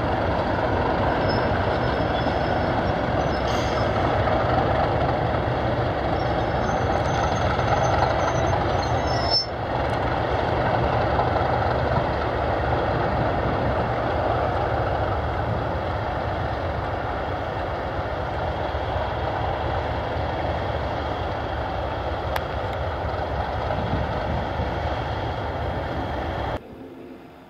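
Two Class 37 diesel locomotives with English Electric V12 engines running loud and steady as they move slowly past, with a faint high squeal over roughly the first ten seconds. The sound drops sharply just before the end.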